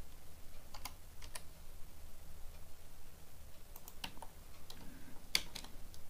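Computer keyboard keystrokes and mouse clicks, a few scattered taps and short clusters, over a faint steady low hum.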